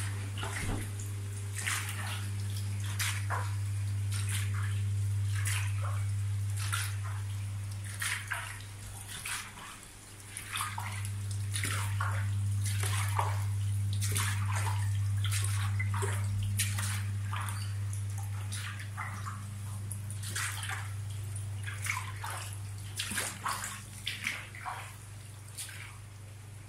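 Footsteps splashing and sloshing through shallow floodwater on an indoor floor, in irregular splashes about one or two a second. A steady low hum runs underneath and fades out briefly about ten seconds in.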